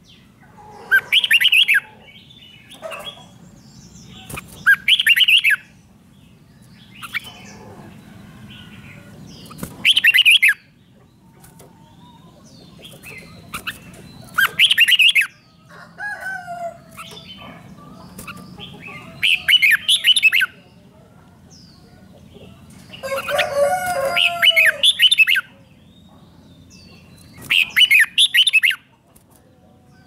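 Red-whiskered bulbul singing: loud, short whistled phrases, seven in all, repeated about every four to five seconds, with softer, lower notes between some of them.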